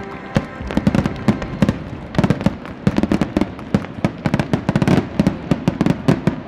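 A rapid, irregular string of loud, sharp cracks and pops, several a second, from the crowd in the stand.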